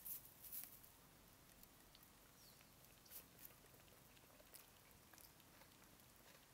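Faint crisp clicks of a sheep chewing its cud, a few louder ones in the first second, over near silence.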